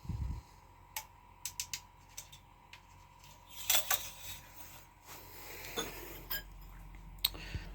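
Scattered light metallic clicks and clinks of something being handled, with a louder clatter about four seconds in.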